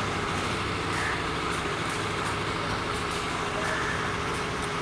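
Steady background noise with a low hum throughout and no distinct event.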